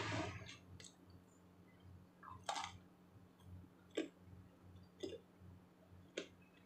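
Close-up eating sounds of raw vegetable salad: a louder crunchy burst at the start, then short sharp crunches or clicks of chopsticks about once a second, over a faint low steady hum.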